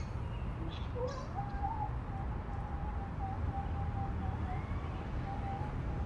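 African grey parrot whistling: a short rising whistle about a second in, then one long held note that wavers slightly and stops near the end. A steady low rumble lies underneath.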